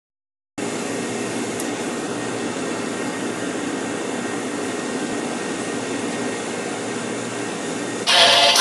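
Steady rushing hum of commercial kitchen ventilation and oven fans, starting after a brief silence. Near the end, louder music cuts in over it.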